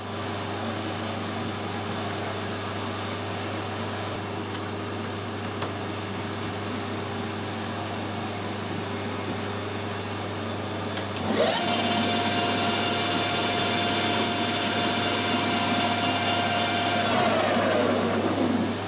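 Metal lathe spindle motor started about eleven seconds in: a steady whine that holds for about six seconds, then falls in pitch as the spindle winds down near the end. Before that there is only a steady low hum.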